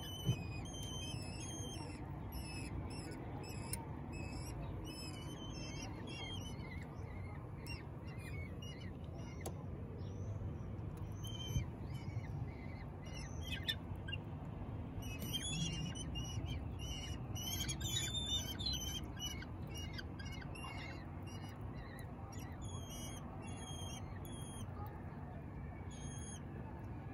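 Common kestrel nestlings giving high, thin begging calls in quick runs of short notes as they are hand-fed, busiest at the start and again in the middle, over a steady low hum.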